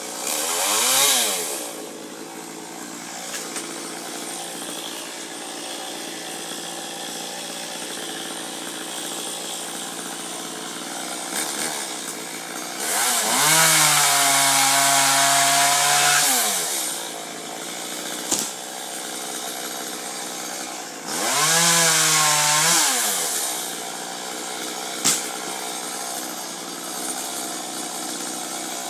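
Chainsaw engine idling, revved up to full throttle three times: briefly about a second in, for about three seconds in the middle, and for about two seconds later on, each time dropping back to idle.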